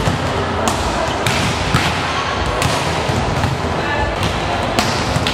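Volleyballs being struck and hitting the floor in a warm-up drill: irregular sharp slaps, about one or two a second, in a large sports hall.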